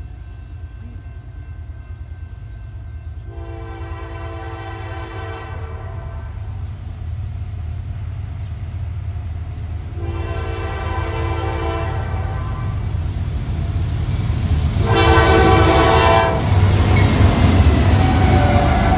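Norfolk Southern diesel freight locomotives approaching and sounding their multi-note air horn three times: two long blasts and a shorter, louder third. The low engine rumble grows steadily louder and turns into the loud rush of the locomotives and cars passing close by near the end.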